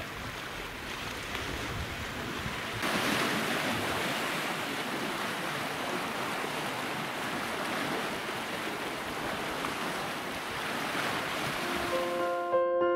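Sea water washing in the shallows, an even rush with some wind on the microphone, louder from about three seconds in. Piano music comes in near the end as the water sound stops.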